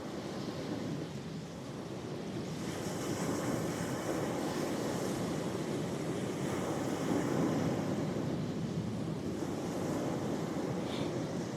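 Sea waves breaking and washing up the shore as a continuous rush, swelling louder with a hissing wash about two and a half seconds in.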